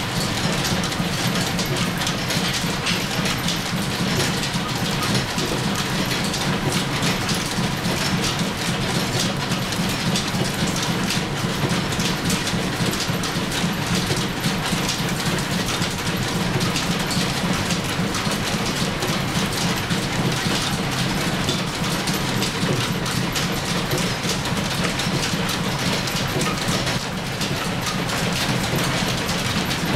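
Line-shaft, belt-driven metal lathe running under power, its chuck spinning, with a steady low hum and a continuous rattle and clatter of gears and drive belt.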